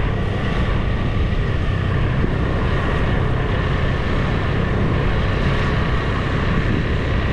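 Motorbike engine running steadily while riding, with wind buffeting the camera's microphone.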